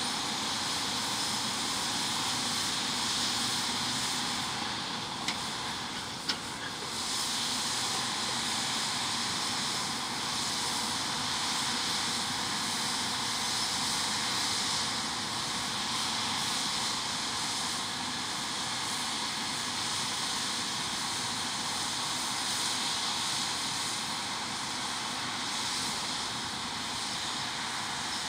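Combine harvester running steadily while harvesting, heard as a constant hissing machine noise. Two short clicks come about five and six seconds in.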